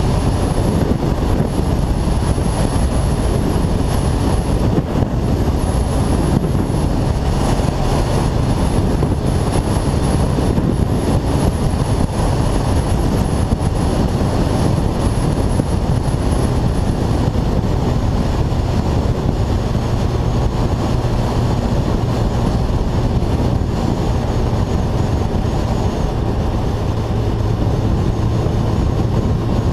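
Kawasaki ZZR1400 inline-four under way at steady speed, heard from on board the motorcycle as a steady engine drone under heavy wind rush on the microphone. The engine note grows a little stronger in the second half.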